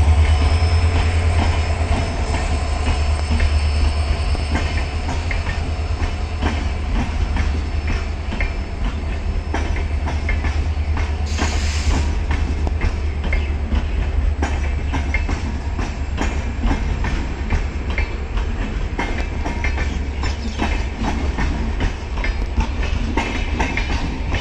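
Passenger train coaches rolling past close by: the wheels click steadily over the rail joints in a clickety-clack over a low rumble. There is a brief high hiss about halfway through.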